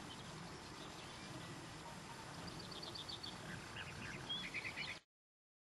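Open-air ambience: a steady low rustle of wind and background noise with small birds chirping, a quick run of high notes about two and a half seconds in and a louder burst of repeated chirps near the end. The sound cuts off abruptly about five seconds in.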